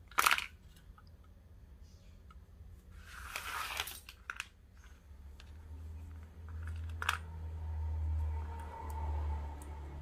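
Handling noise from craft tools and paracord on a cutting mat: a sharp click just after the start as the lighter and scissors are handled, then a short rasping swish about three seconds in, another click around seven seconds, and a low rumble of hands working the cord near the end.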